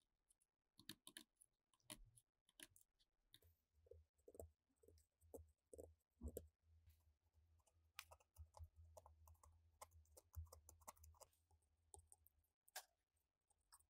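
Faint, irregular scraping and clicking of a razor-blade scraper lifting an old glued-on paper label and its adhesive off a plastic cabinet, over a faint low hum through the middle.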